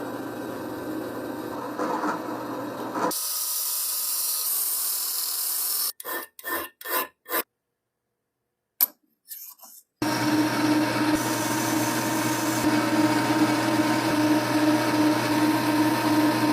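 Workshop tool sounds in separate cuts: an electric tool hums and grinds for about three seconds, then a hissing stretch and a few short bursts. From about halfway, a motor-driven tool runs steadily with a humming tone as it abrades the part.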